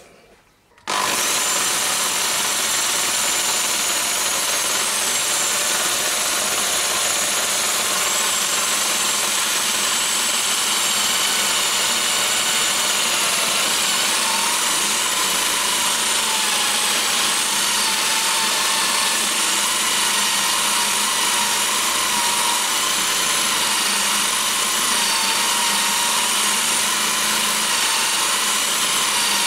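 Corded electric drill starting about a second in and then running steadily, driving a toolpost drill spindle as a centre drill cuts into a 316 stainless steel bar; its motor whine wavers slightly in pitch under the load of the cut.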